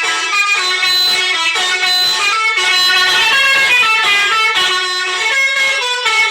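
Telolet horn, a multi-tone vehicle horn, playing a fast tune of short stepped notes that change several times a second.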